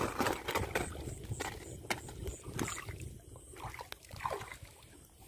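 Woven plastic sack crinkling and rustling as it is handled, with water splashing, as freshly caught fish are put into it. The crackling is densest in the first couple of seconds.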